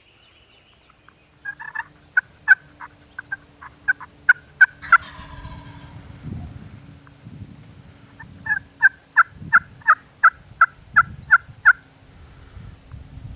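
Turkey yelping: two runs of short, sharp yelps at about three notes a second, each run lasting about three seconds, with a pause of about three seconds between them.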